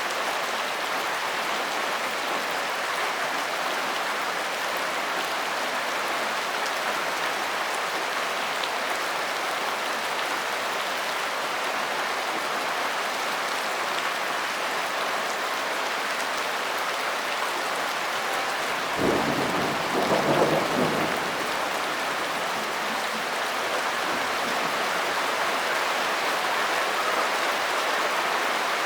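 Steady rain falling, with a short rumble of thunder about two-thirds of the way through that starts sharply and dies away after two or three seconds.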